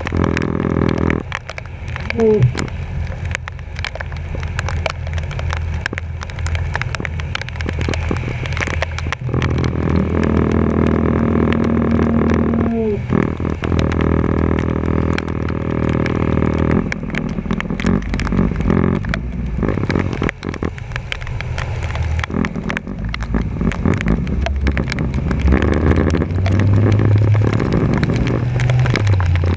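Truck driving through flooded, rain-soaked streets, heard from a camera on its front bumper: the engine runs steadily under a constant crackle of rain and splashing water.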